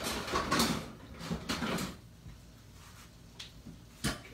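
Kitchen handling noises: rustling and clattering for about two seconds, then a quieter stretch broken by one sharp knock near the end.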